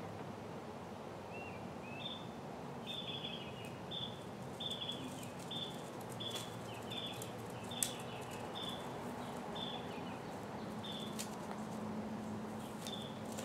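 A songbird repeating a short chirp over and over, a little under two a second, over steady outdoor background noise. A single sharp click about eight seconds in.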